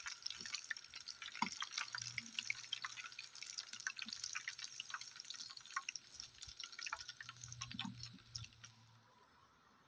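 Battered shrimp deep-frying in hot oil in a pan, the oil sizzling with a dense run of small crackles and pops; it cuts off about nine seconds in.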